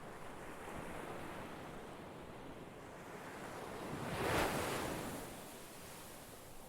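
Ocean waves washing in, a continuous surf wash with one wave breaking loudest about four seconds in, then drawing back.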